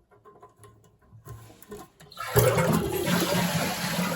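A few faint clicks, then about two seconds in a toilet flushes, a sudden loud rush of water that keeps running. The flush is worked by a newly installed flush handle and trip lever.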